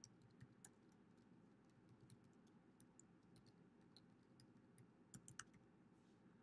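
Faint typing on a computer keyboard: scattered, irregular keystrokes, with a few slightly louder clicks about five seconds in.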